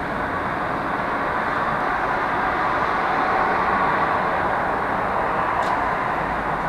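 Steady rumble of city traffic, swelling a little in the middle and easing off, with one faint click near the end.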